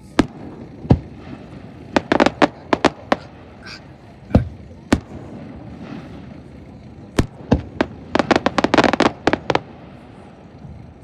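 Aerial fireworks shells bursting, a string of sharp bangs at irregular intervals, with a quick run of many pops about eight seconds in.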